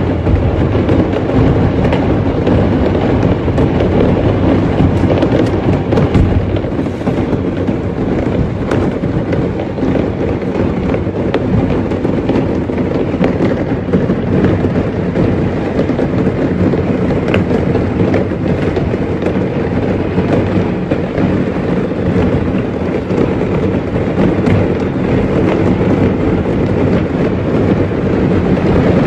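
A burning firework factory's stock of fireworks going off all at once: a dense, unbroken barrage of bangs and crackling over a continuous rumble.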